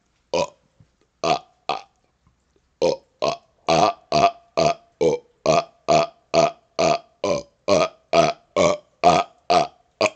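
A man burping in a rapid-fire series of short, separate burps: three spaced out, then after a brief pause a steady run of about seventeen at roughly two a second.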